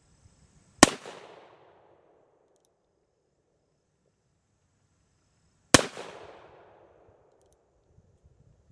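Two shots from a Pietta 1863 Remington pocket percussion revolver, a .31-calibre black-powder cap-and-ball gun, about five seconds apart. Each is a sharp crack with an echo that fades over about a second. Faint clicks come between the shots.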